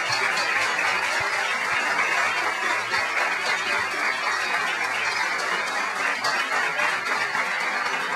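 Audience applauding at a steady level, a dense even clatter of many hands.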